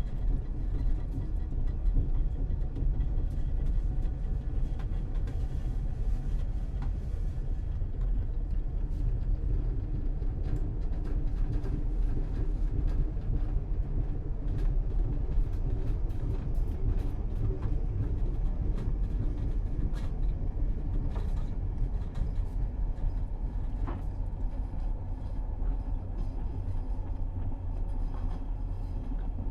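Steady low rumble of a moving commuter train heard from inside the carriage, with frequent small clicks and rattles.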